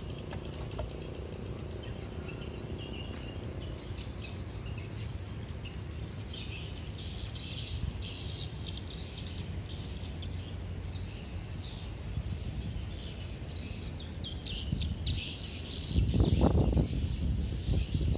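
Small birds chirping in quick, scattered calls over a steady low background rumble. Near the end, a louder, lower sound comes in.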